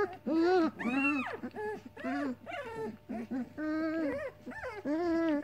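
Weimaraner puppies whining and moaning, a quick string of high, arching cries that rise and fall in pitch, one after another. The uploader takes this crying for hunger, with the mother not letting them feed.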